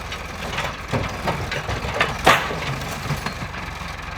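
An engine idling steadily under a handful of sharp knocks and one louder crunch a little over two seconds in.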